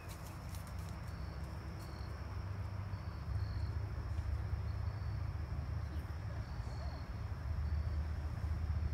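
Crickets chirping steadily in short repeated pulses, over a low rumble that grows louder toward the end.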